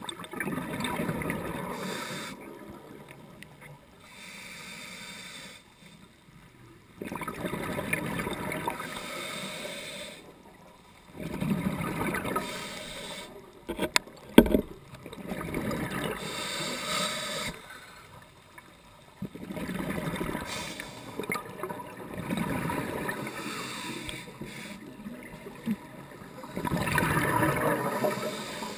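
Scuba diver's exhaled bubbles from the regulator, heard underwater: a gurgling rush of bubbles every few seconds, with quieter gaps between breaths. A couple of sharp clicks about halfway through.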